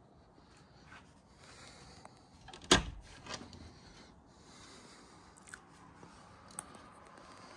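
A glass-panelled shed door being opened, with one sharp latch clunk about three seconds in and a few lighter clicks after it.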